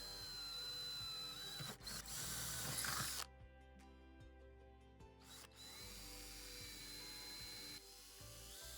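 Electric drill running, boring screw holes through a metal door, its motor whine wavering in pitch under load. It runs for about three seconds, stops for about two, then runs again.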